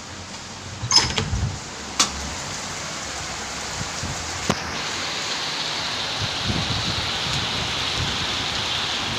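Rain falling with a steady hiss that grows louder from about halfway through, with a few sharp knocks in the first half.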